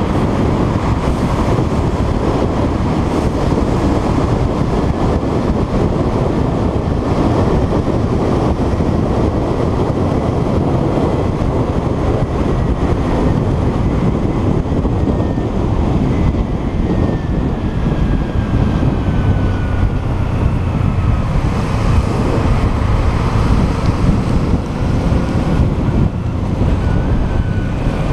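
Kawasaki Ninja 300's parallel-twin engine running steadily at road speed, mixed with heavy wind rush on the microphone. A faint whine drifts slowly in pitch past the middle.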